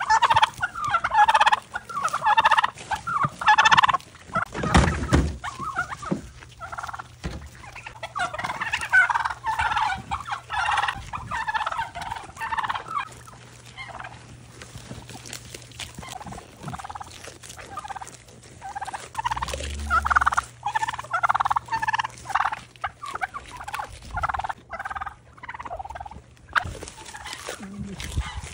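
Turkeys gobbling again and again in rapid rattling bursts, over the crackle of goats crunching celery stalks. A dull thump about five seconds in.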